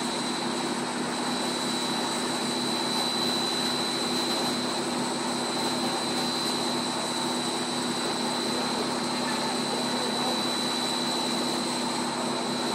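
Monolayer blown film extrusion line running: a steady machine drone with a constant high whine over it.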